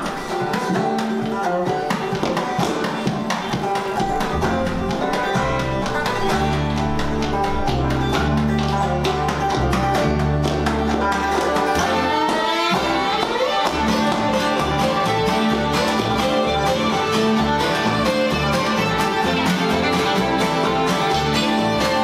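Bluegrass band playing an instrumental passage without singing: acoustic guitars, fiddle, five-string banjo and upright bass. The deep bass notes come in about four seconds in.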